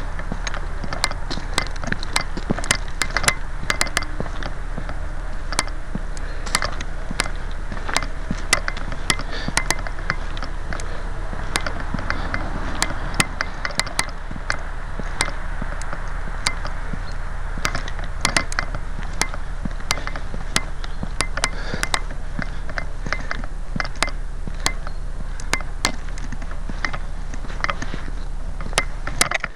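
Handling noise from a gun-mounted camera on the move through dry grass and brush: steady rustling with many irregular clicks and knocks.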